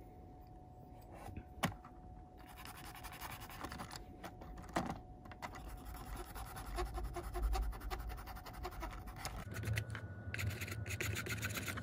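Fibre pen scratched and rubbed along the side of a plastic N gauge model coach: a faint scratchy rasping with a few light clicks of handling. A low hum comes in near the end.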